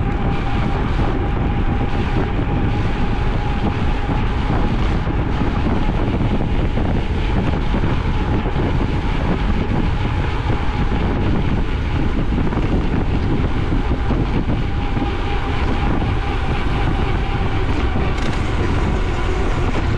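Wind rushing over the microphone of a bicycle rider at speed, a loud, steady rumble with a faint, steady hum underneath.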